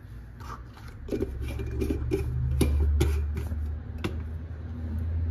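Light clicks and taps of a spoon and spice containers being handled over a steel platter, about seven scattered over a few seconds, over a low steady hum.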